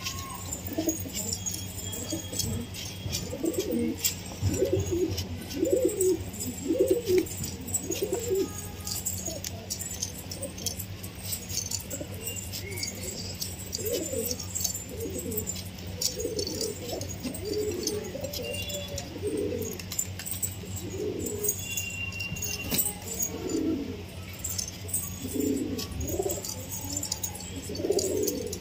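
A flock of domestic pigeons cooing, the low coos coming in runs of about one a second and repeated on and off, with faint ticks of beaks pecking the concrete floor.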